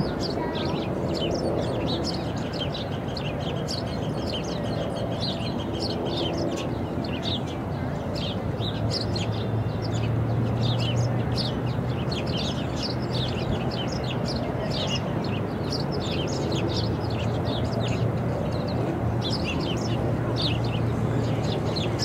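Small songbirds chirping and tweeting: many short, high chirps in quick runs throughout, over a steady low rumble.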